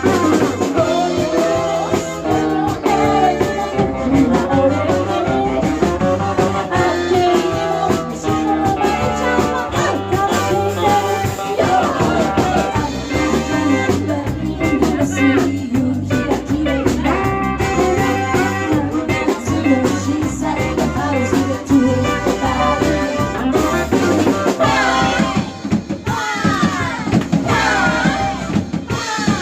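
Band playing an upbeat number with a drum kit, with some singing.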